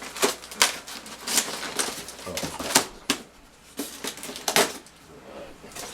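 Irregular crinkling and sharp crackles of plastic bags and packaging being handled while parts are taken out of a box.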